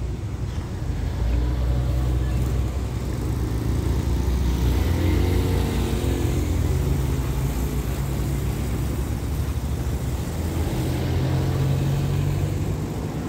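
Low, steady rumble of distant engines that grows about a second in, with one vehicle's engine note swelling and fading between about four and seven seconds in.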